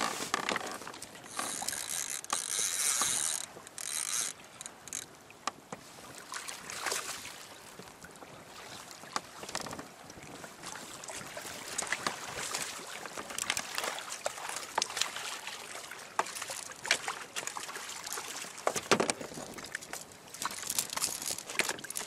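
Choppy sea water splashing against a fishing kayak's hull in strong wind, with scattered sharp clicks and knocks. A brighter hissing burst comes about one to three seconds in.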